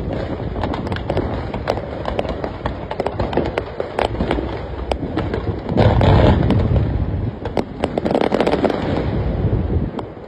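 Fireworks display: dense, rapid crackling and popping of many shells, with heavier booms about six seconds in and again about eight seconds in.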